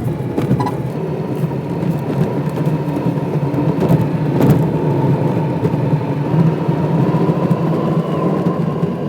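A vehicle driving steadily along a road: a constant rumble of engine and road noise with a thin steady whine, and a couple of short knocks, one about half a second in and one about four and a half seconds in.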